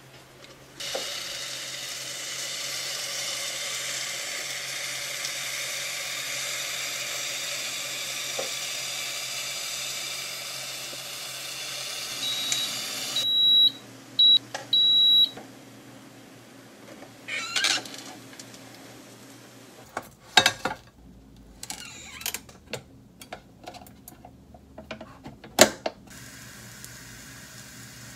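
A steady hissing rush that cuts off abruptly about thirteen seconds in, followed by three short, high electronic beeps, then scattered clicks and knocks.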